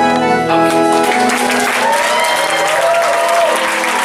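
Music of held keyboard chords over steady applause and clapping from a congregation, with a few voices rising in the middle.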